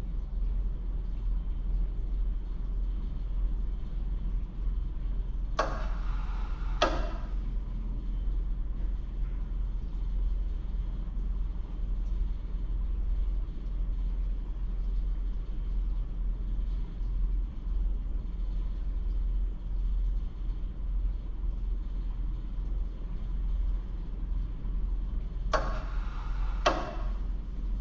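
Steady low hum of a spectrophotometer cryostat running while it holds at its −50 °C target temperature. Two pairs of short hissing bursts, the two in each pair about a second apart, come about six seconds in and again near the end.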